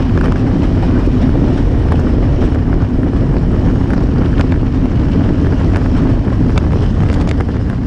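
Heavy wind buffeting the microphone of a bicycle riding at about 18 mph, a loud, steady low rumble, mixed with the running of a passenger train alongside and scattered small ticks.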